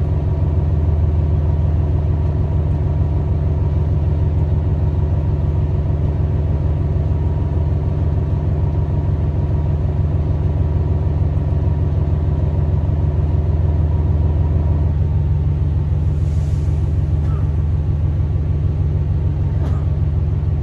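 Diesel engine of a Tosa Kuroshio Railway 9640-series railcar idling steadily with a deep hum, heard from inside the cabin while the car stands still. A set of higher tones above the hum drops away about 15 seconds in, followed by a faint brief hiss.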